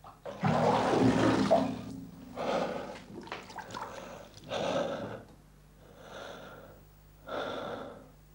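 A man gasping for air after holding his head under bathwater: one long, loud gasp, then several heavy panting breaths.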